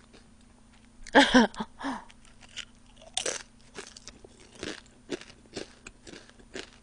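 Close-miked crunching and chewing of a thick fried potato chip, with one sharp crunch about three seconds in and then small crunches about every half second. A short hum from the eater about a second in.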